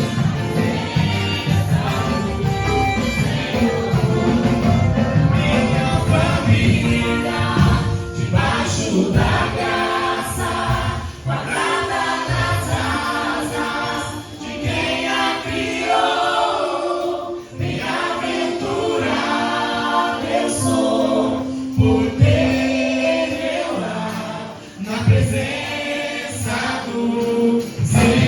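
Voices singing together a Christian worship song with instrumental accompaniment.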